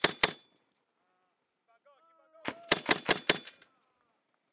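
Mark 19 40mm automatic grenade launcher firing short bursts: the last two shots of one burst right at the start, then a burst of about six shots about two and a half seconds in, at roughly five rounds a second.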